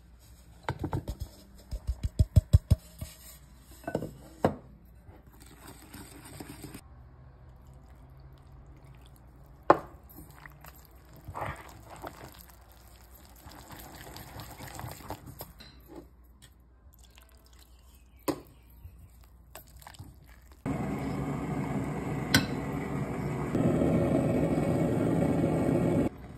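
Wire whisk mixing cake batter in a glass bowl: a quick run of clicks as it knocks against the glass early on, then softer stirring with scattered taps. Near the end a steady rushing noise comes in and grows louder a few seconds later.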